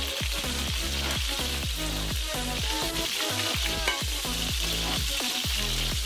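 Chicken pieces frying in hot vegetable oil in a pot, a steady sizzle, as they are lifted out, with one sharp click about four seconds in. Background music with a steady beat plays under it.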